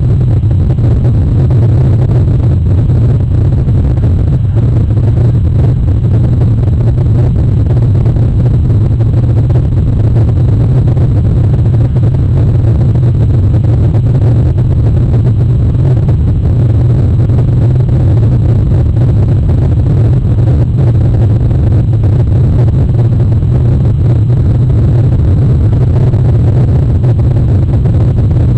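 A loud, steady low rumble of noise that stays the same throughout, with no distinct events.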